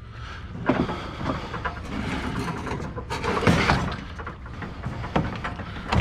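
Irregular knocks, clatter and scraping as bulky scrap items are handled and shifted into place, the loudest clatter about halfway through.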